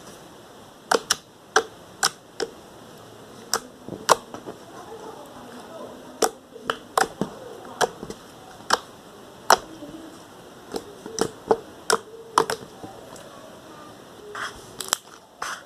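Slime being pressed and squeezed by hand, with trapped air popping in sharp, irregular clicks about once or twice a second.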